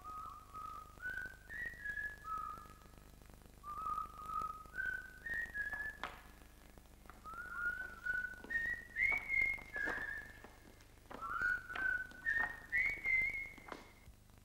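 A person whistling a tune in short phrases of held notes, each phrase mostly climbing step by step, with a few sharp clicks in between.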